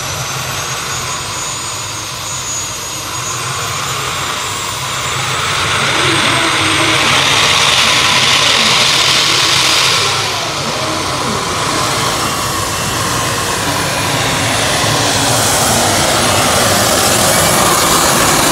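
Jet-turbine engine of a pulling tractor running at full power under load: a loud jet roar with a high whine that rises in pitch over the first few seconds. It eases briefly about ten seconds in, then builds again.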